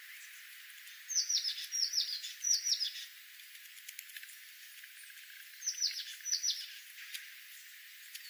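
Small bird calling in short phrases of quick, falling high notes: three phrases about a second in, then two more past the middle, over a steady hiss.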